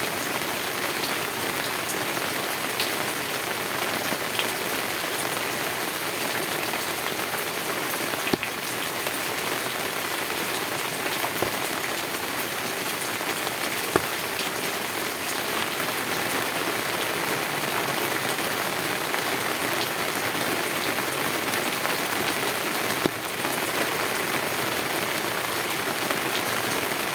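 Heavy rain drumming steadily on a tin roof, a dense even hiss with a few louder single drop strikes scattered through it.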